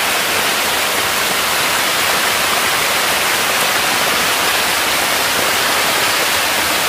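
Steady splashing and rushing of water: a densely stocked tank of hybrid magur catfish churning the shallow water as feed is scattered to them, with water spraying in from a pipe.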